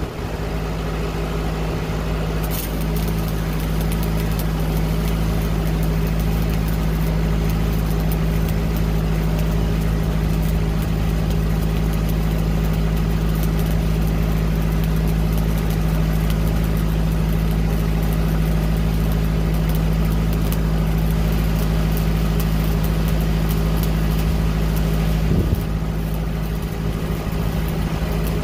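Stick-welding arc crackling and hissing steadily as a pass is run on the pipe, over the steady drone of a Lincoln Pipeliner 200D engine-driven welder running under load. A short knock about 25 seconds in.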